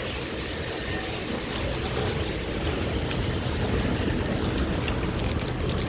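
Heavy rain pouring down, a steady rushing hiss, with a low rumble that grows stronger about a second and a half in.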